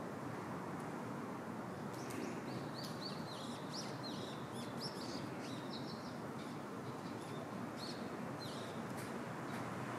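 A bird chirping, a quick string of short high chirps from about two seconds in until near the end, over a steady hum of outdoor background noise.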